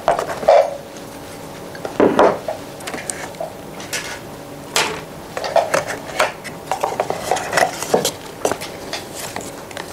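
Thin black sticks and a small white box handled on a wooden desk: separate light knocks and taps, then a quicker run of small clicks and rattles in the second half as the sticks are pulled from the box.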